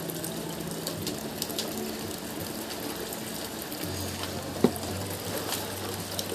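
Rain falling with a steady hiss and many scattered sharp drip taps. A low hum comes in about four seconds in, and a single sharp click sounds shortly after.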